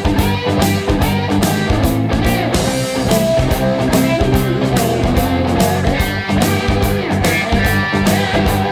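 Background music: a guitar-led rock song with a steady beat.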